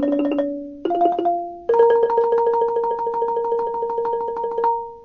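Instrumental intro music of short struck notes: a few separate notes in quick clusters, then from about two seconds in a pair of notes struck over and over rapidly for nearly three seconds.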